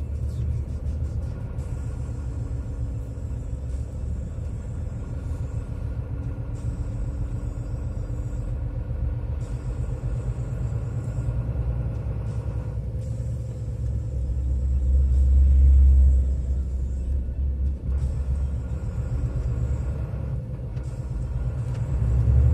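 Low rumble of a vehicle's engine and road noise heard from inside the cab while it creeps along in a traffic jam, swelling louder about two thirds of the way through and again at the end.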